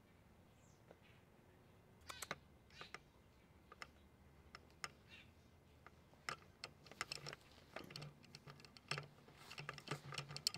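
Faint, irregular clicks and rustles, coming thicker in the second half, from a dog and a deer moving against shrubs and a chicken-wire fence.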